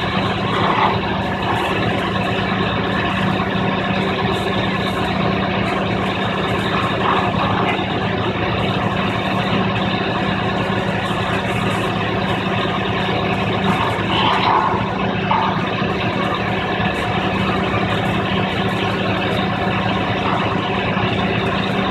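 Fire ladder truck's diesel engine running steadily, with a few short, brief sounds over it.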